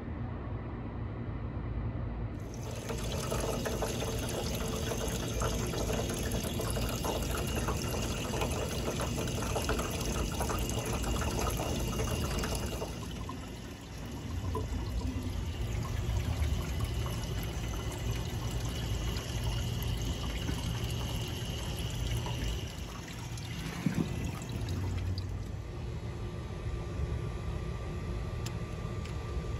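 Engine coolant running out of a C4 Corvette's radiator drain and splashing into a catch pan, a dense steady splashing that eases off about thirteen seconds in.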